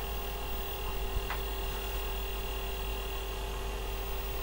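Steady electrical hum of several held tones from an Osborne OCC1 computer that has just been switched on and is booting from floppy disk, with one faint click a little over a second in.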